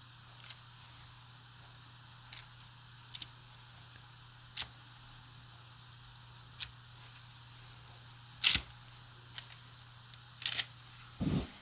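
Metal fork pressed into peanut butter cookie dough on a parchment-lined metal baking sheet, its tines clicking against the pan about ten times at uneven intervals, the loudest click about two-thirds of the way through. A steady low hum runs underneath and stops near the end, just after a duller knock.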